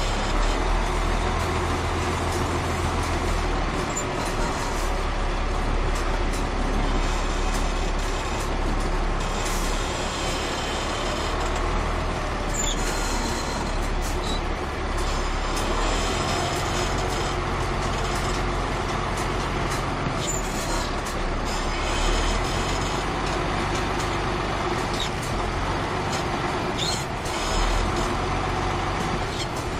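Caterpillar 3406 inline-six diesel in a 1994 Ford L9000 truck running steadily while the truck drives.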